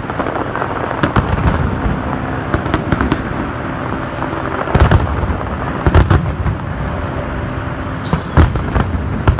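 Fireworks display at full intensity: a continuous rumble and crackle of many shells bursting at once, with louder bangs standing out about a second in, around the middle, and again near the end.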